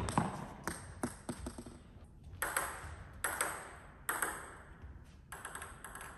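Table tennis ball bouncing: a quick run of small clicks that come closer together in the first second or so, then four louder, ringing clicks roughly a second apart.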